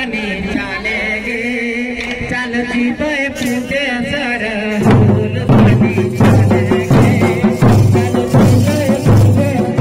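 Men singing a Kudmali folk song through microphones, with hand-played mandar and stick-beaten nagara drums. About five seconds in, the drums come in loud and heavy, with deep strokes several times a second under the singing.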